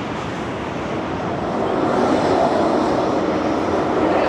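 High wind gusting over the microphone: a loud, steady rushing that swells about a second and a half in.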